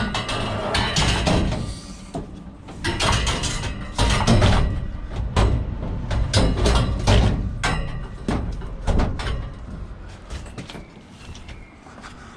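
Pieces of scrap metal clanging and clattering as they are thrown or dropped, a quick irregular run of crashes with some ringing, busiest in the first two thirds and thinning out towards the end.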